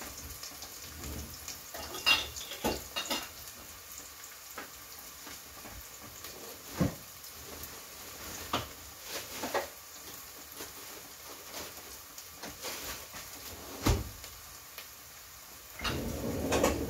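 Scattered clinks and knocks of pots, dishes and utensils being handled in a low kitchen cupboard, a few louder knocks among them, over a steady faint sizzle from food frying in a pot on a gas burner.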